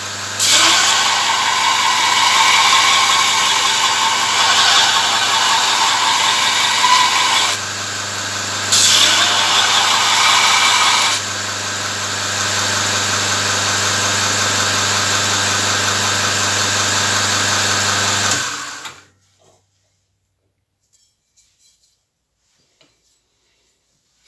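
Electric belt grinder running, its abrasive belt grinding a forged leaf-spring-steel spear blade: a loud grinding noise over a steady motor hum, swelling and easing several times as the blade is pressed on and lifted off. About three-quarters of the way through the grinder stops within a second, leaving near silence with a few faint clicks.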